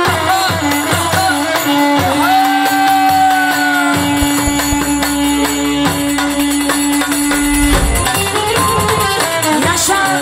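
Live Romani dance music played by a band: a woman sings into a microphone over the melody, with a tambourine jingling. A long low note is held through the middle.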